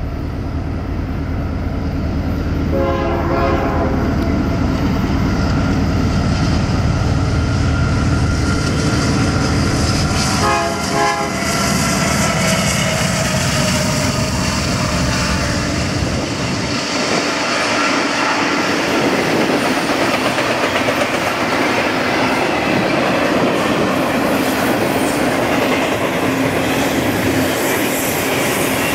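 BNSF diesel-led double-stack intermodal freight train passing at speed. The locomotives' horn sounds over the deep rumble of their engines, and the horn drops slightly in pitch as they go by. After that the container cars roll past with a steady rushing clatter of wheels on rail.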